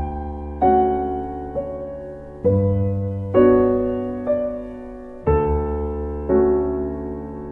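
Slow, gentle piano music: soft chords struck about once a second, each ringing out and fading before the next.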